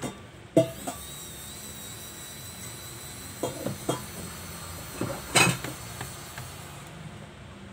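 Screwdriver and small screws clicking and clinking against the plastic bottom case of an Asus A44H laptop while its cover screws are taken out. There is one sharp knock about half a second in, a pair of clicks a little past the middle, and a louder clack after that.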